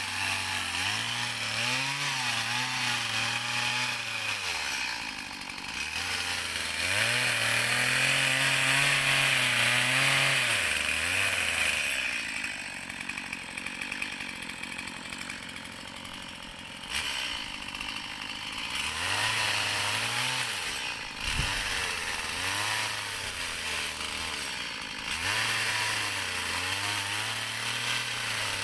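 Chainsaw cutting up a fallen tree, its engine pitch rising, holding and dropping again over several cuts, loudest in a long cut near the middle.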